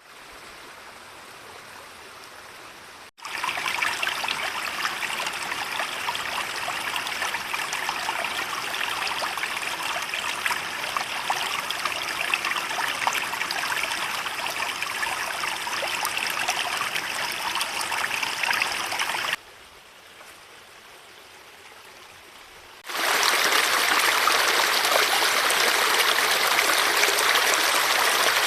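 Forest stream water running and trickling in a steady, even rush. The level jumps at abrupt cuts: fainter for the first three seconds and again for about three seconds in the second half, louder in between and near the end.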